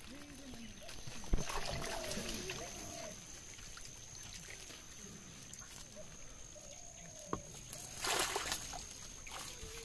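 Water sloshing and splashing in a fishing net as small fish are handled, with a short louder splash about eight seconds in and a couple of sharp clicks. Faint voices are in the background.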